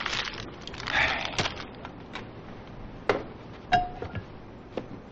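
Crinkling of a cellophane-wrapped gift basket being handled, among a few sharp knocks and footsteps.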